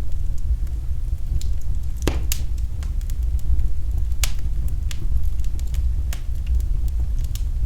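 Wood fire in a fireplace crackling, with scattered sharp pops, the loudest about two seconds in, over a steady low rumble.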